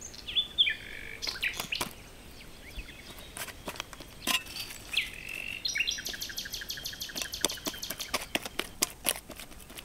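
Birds chirping: a few short whistled notes, then a fast run of repeated chirps from about six seconds in, with scattered sharp clicks among them.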